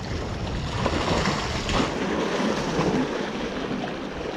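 Small waves washing and splashing against jetty rocks, with wind on the microphone.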